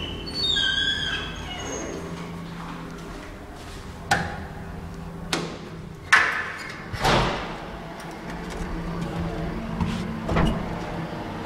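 Doors of a 1986 Tal traction elevator being worked by hand: a series of sharp latch clicks and door knocks as the landing door is opened and the car entered, over a steady low hum.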